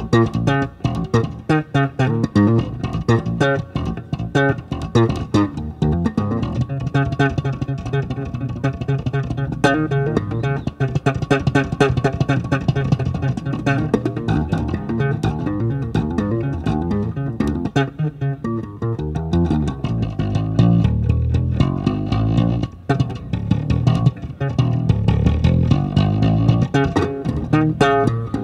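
Live jazz-funk band playing: an electric bass leads with quick lines over drums and electric guitar.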